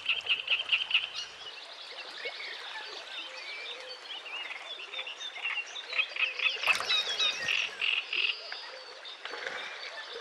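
A dense chorus of frogs calling, many short high chirps and trills overlapping, with bird calls mixed in; a fast pulsing trill stands out at the start and again about eight seconds in.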